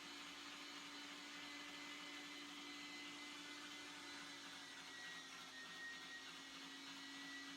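Electric meat grinder motor running steadily with a low hum and a faint high whine while grinding steak scraps on a second pass; its pitch sags slightly about five seconds in.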